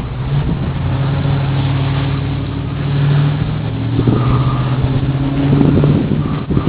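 1969 Camaro's engine running steadily, swelling a little in level about three seconds in and again near six seconds.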